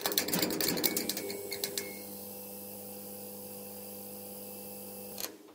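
Neon-sign sound effect: a crackling electrical buzz with rapid clicks as the tubes flicker on over the first two seconds, then a steady electrical hum that cuts off suddenly about five seconds in.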